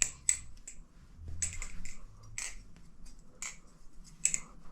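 LDY Corvus balisong being flipped: its handles swing around and clack together in a quick, irregular series of sharp metallic clicks and light rattles.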